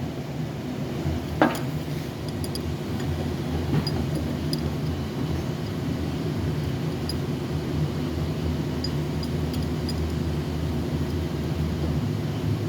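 A steady low mechanical hum, with one sharp metallic clink about a second and a half in and a few faint ticks after it, as the steel latch pieces are handled and set in place.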